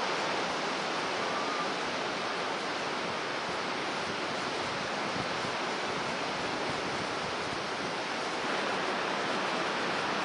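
Rough storm surf breaking and washing over rocks, a steady rush of noise.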